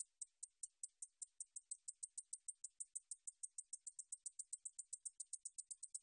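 Song of a 줄베짱이 bush katydid (Ducetia japonica): a train of short, high-pitched ticks that speeds up from about five a second to about seven a second.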